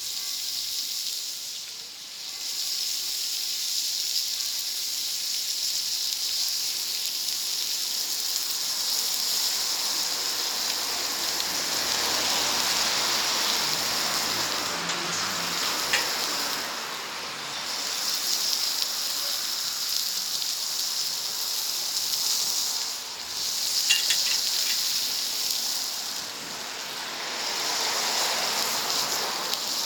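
Food sizzling on a hot wood-fired plancha: a steady hiss that swells and fades in slow waves, with a few small pops.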